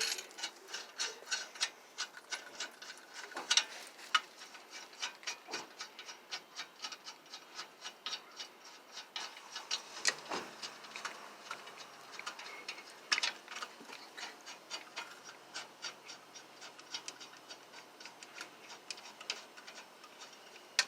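Hand ratchet clicking steadily, a few clicks a second with some louder strokes, as a car is jacked up or its lug nuts are worked during a flat-tire change.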